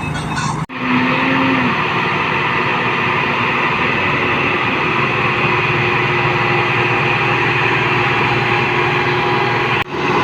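New Holland rice combine harvester running steadily, a dense mechanical drone with a constant whine. The sound drops out for an instant about a second in and again near the end.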